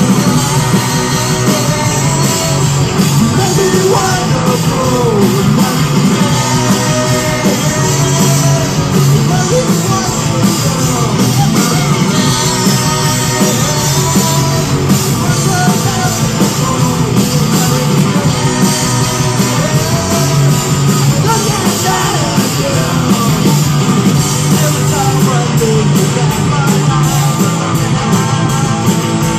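Live rock band playing a song: a lead vocal sung over electric guitars, bass guitar and a drum kit.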